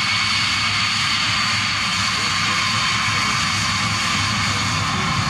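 Saab 37 Viggen's Volvo RM8 turbofan running at taxi power: a steady jet rush with a high whine of two held tones.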